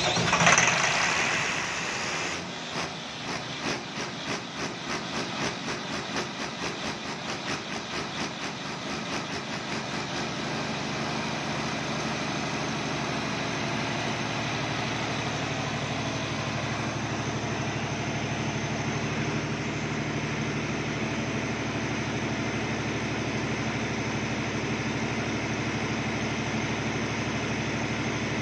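Turbocharged Perkins diesel engine of a 150 kVA generator set running just after a cold start. It is loudest for the first couple of seconds, then runs with an uneven pulsing beat for several seconds before settling, about ten seconds in, into a steady run.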